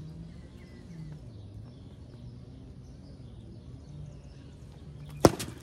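Yellow plastic wiffle bat hitting a wiffle ball: one sharp, hollow crack about five seconds in, over faint steady outdoor background noise.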